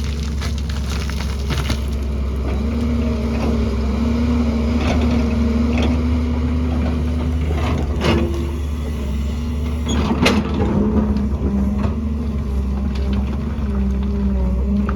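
Excavator's diesel engine running steadily under working load, its note stepping up about two and a half seconds in and wavering after. Several sharp knocks sound over it, the loudest about ten seconds in.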